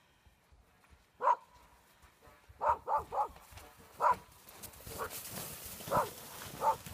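A dog barking in short single barks, with a quick run of three near the middle, about eight in all. A hiss of noise rises in the second half.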